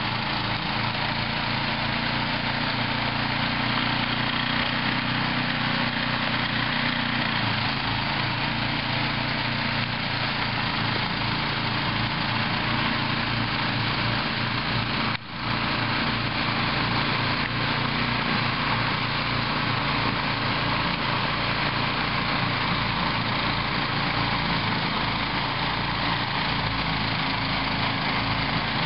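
Toro snow thrower engine running steadily, with a brief drop-out about halfway through.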